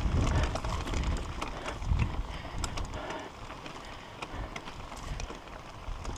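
Mountain bike rolling over a rough dirt trail: tyres on loose dirt and a run of knocks and rattles from the bike over bumps, over a low rumble. It gets quieter in the second half as the ground flattens out.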